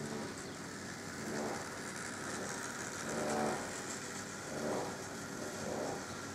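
Rivarossi D245 model diesel locomotive running on its track, with the motor and gearing humming and the wheels rolling on the rails. The hum swells and fades every second or two.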